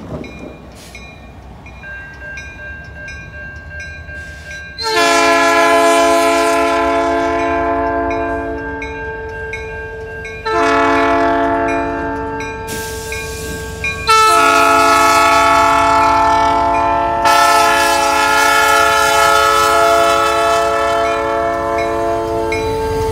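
Diesel locomotive (CN 5469) sounding its multi-note air horn for a grade crossing: three blasts, the last one long, each several notes at once, over the low rumble of the locomotive's engine as it approaches and passes. Before the horn starts, a crossing bell ticks faintly and evenly.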